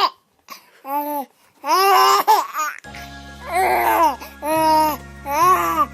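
Short bursts of high-pitched, baby-like babbling and giggling, several in a row. A steady background music track comes in about three seconds in.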